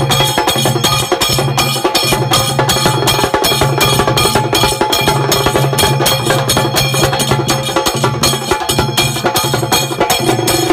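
Trinidadian tassa drumming: fast stick strokes on the drums, a rope-tensioned barrel bass drum beating in a steady repeating pattern, and brass hand cymbals (jhal) clashing continuously over it.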